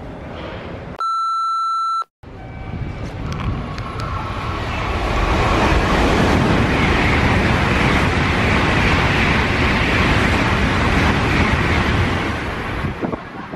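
A Tokaido Shinkansen bullet train passing through the station at speed: a rushing roar of air and wheels on rail that builds, holds loud for several seconds and eases off near the end. About a second in comes a steady electronic beep lasting about a second, which cuts off sharply.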